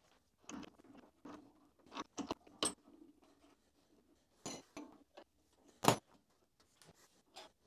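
Scattered metallic clicks, clinks and knocks as a steel ER32 collet holder is handled and pushed up into the milling machine's R8 spindle while the drawbar is worked from the top of the head. The sharpest knock comes about six seconds in.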